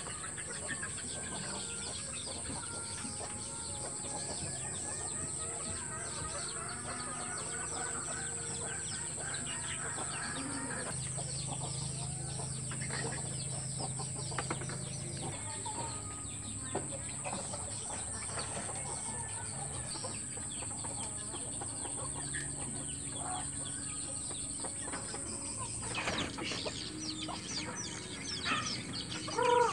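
Free-range village chickens clucking as they peck grain off wooden boards, with scattered taps of beaks on the wood, over a steady high-pitched hum. A louder call comes near the end.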